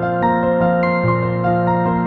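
Soft new-age style background music of held, overlapping notes, a new note entering about every half second.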